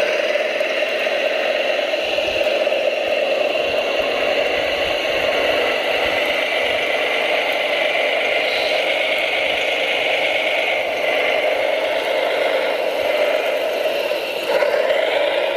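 Radio-controlled construction machine running: a steady whir and rattle of its electric drive and gearing, with a rising whine near the end as it speeds up.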